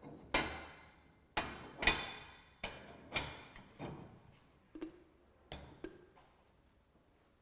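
A dozen or so clanks and knocks of metal parts of a wood-fired kitchen stove being handled, each with a short ringing tail, the loudest about two seconds in. They stop about a second before the end.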